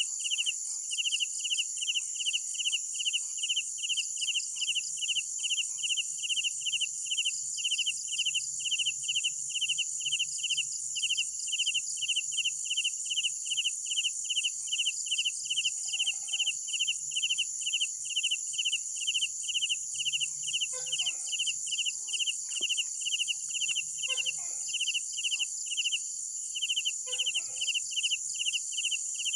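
Night crickets chirping: a steady high-pitched insect buzz runs under an evenly repeating chirp, about two to three chirps a second. Faint short calls from another animal come in lower down in the second half.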